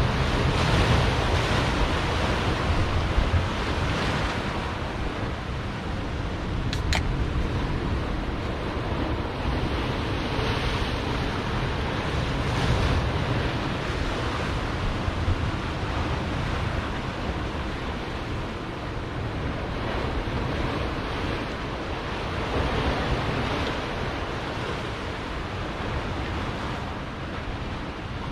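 Ocean surf washing against coastal rocks, a steady rushing that swells and eases with the waves, with wind buffeting the microphone. One brief click is heard about seven seconds in.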